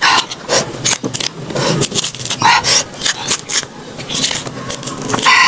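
Raw green stone banana (pisang batu) being peeled by hand: close, irregular crisp clicks and tearing scrapes of the firm unripe skin.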